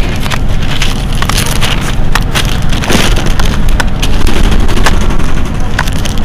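Heuliez GX 327 city bus engine idling as a steady low rumble while stopped, heavily overlaid by loud, irregular crackling and clicks.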